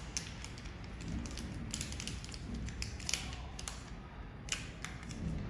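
Scattered small clicks and taps of parts being handled as the protective lens cartridge is taken out of a handheld laser welding head, over a low steady hum.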